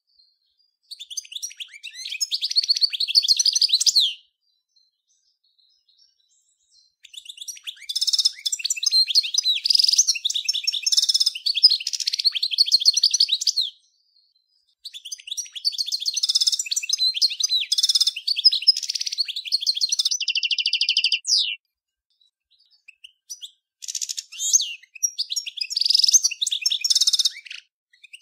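European goldfinch of the large 'major' race singing: four phrases of fast, high twittering song separated by short pauses, the third ending in a rapid even trill.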